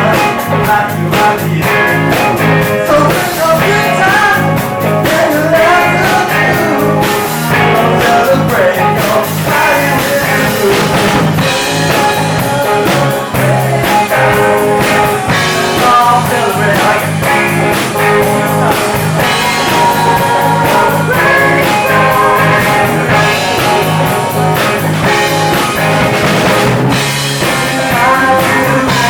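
Live band playing an upbeat rock-style song with a steady beat, guitar and singing.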